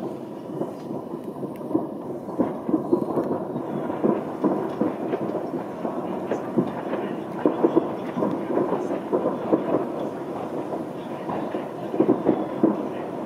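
Many distant fireworks going off at once, blending into a continuous rumble of overlapping bangs, with clusters of sharper pops about seven and a half seconds in and again near the end.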